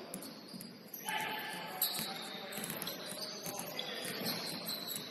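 Basketball game sounds on an indoor court: high squeaks and a ball bouncing, with a sharp knock just under two seconds in.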